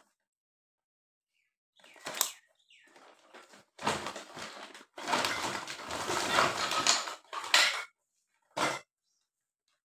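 Paper shopping bag and plastic packaging rustling and crinkling in irregular bursts as items are pulled out, starting about two seconds in. The longest, loudest stretch of rustling comes in the second half.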